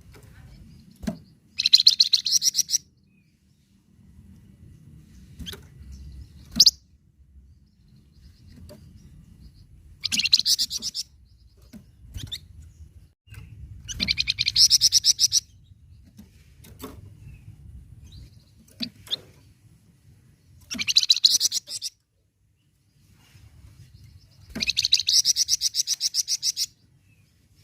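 Flamboyan songbird singing in bursts of about one to two seconds, each a fast run of repeated high notes (a rolling trill), five times, with single short chirps in between.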